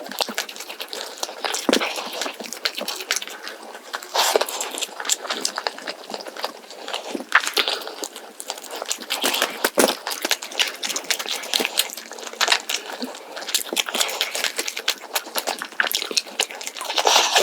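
Close-up eating sounds of a whole roast chicken with scorched rice: dense, irregular crisp clicks and crackles of chewing and handling the food.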